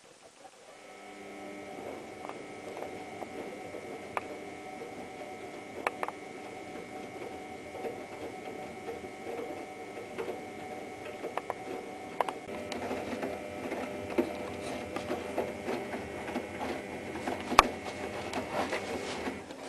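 Washing machine running, its motor giving a steady whine under a rattle with scattered clicks as the drum turns on drum bearings that the owner calls badly damaged. It gets louder in the second half and stops abruptly near the end.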